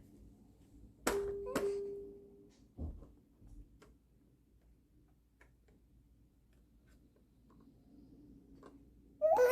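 A couple of sharp clicks and a soft knock, with a brief low steady tone, then a long quiet stretch; a baby's pitched vocalizing starts near the end.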